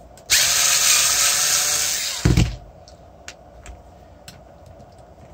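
Small cordless electric screwdriver running for about two seconds with a steady whine, driving a screw out of a motor controller's metal case. A short knock comes as it stops, followed by a few light clicks.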